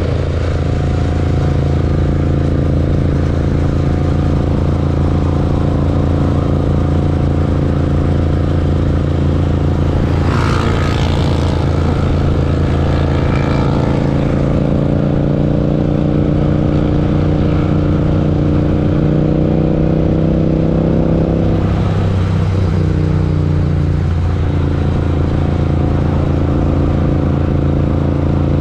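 Parallel-twin motorcycle engine running under way at fairly steady revs. A brief rush of noise comes about ten seconds in, and around twenty-two seconds in the revs dip and change, as at a gear change or easing off.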